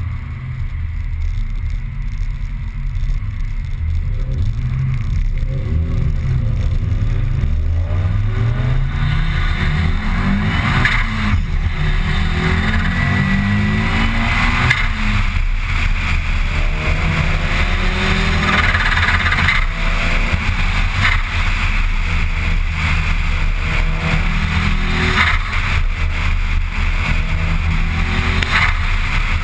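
Car engine pulling hard from a standstill, its pitch climbing through the gears, with a long rise from about four seconds in and another from about sixteen seconds in. Steady road and wind noise lies under it, heard from inside a moving car.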